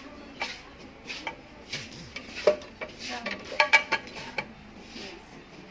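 Betty Crocker frying pans on a store display hook knocking and clinking against each other and the metal rack as they are handled, with a cluster of sharp ringing clinks about three and a half seconds in.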